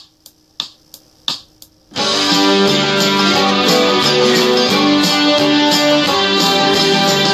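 Method-book play-along track for a G major arpeggio exercise: a count-in of sharp clicks, about three a second, then about two seconds in the instrumental accompaniment starts and runs on loudly.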